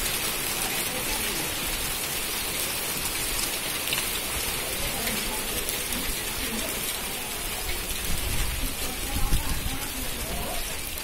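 Hail falling on bare earth: a steady hiss of hailstones striking the ground, dotted with small ticks. A brief low rumble rises about nine seconds in.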